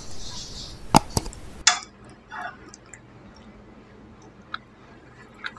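Mouse-click sound effects from an on-screen subscribe-button animation: two sharp clicks about a second in over a short hiss. After that come only faint scattered small clicks.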